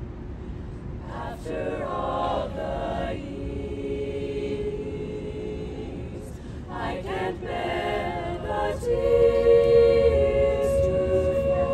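Unaccompanied a cappella vocal ensemble singing held chords in close harmony, swelling louder in phrases and loudest near the end.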